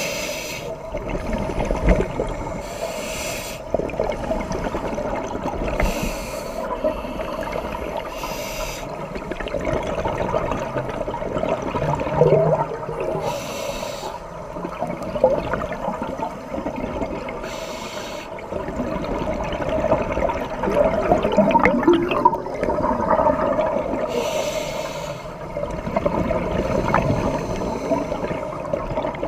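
Scuba regulator breathing heard underwater: hissing breaths through the regulator every few seconds, with the bubbling gush of exhaled air between them over a steady muffled water noise.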